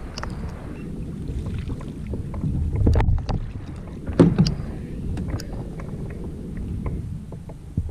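Wind rumbling on the microphone aboard a fishing kayak, with scattered knocks and clicks of gear against the hull; the loudest bumps come about three and four seconds in.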